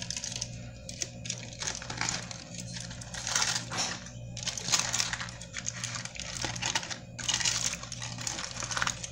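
Aluminium foil wrapper being pulled open and unfolded by hand, crinkling and crackling in irregular bursts over a steady low hum.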